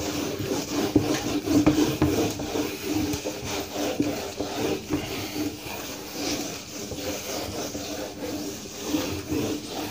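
Whiteboard being wiped clean with a duster: repeated back-and-forth rubbing strokes across the board's surface.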